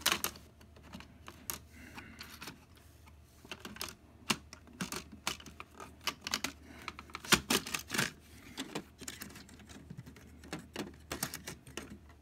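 Irregular plastic clicks, taps and knocks from handling an Epson XP-8500 photo printer, its paper tray being slid in and pulled back out.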